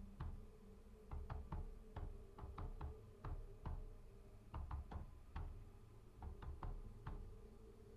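Faint soft knocks or clicks, each with a low thump, coming unevenly about one to two a second over a faint steady hum.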